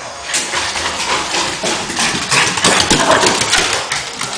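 Two Cavalier King Charles spaniels running and chasing each other, their paws and claws scrabbling on wooden floorboards: a fast, loud patter of clicks that starts about a third of a second in and is thickest around the middle.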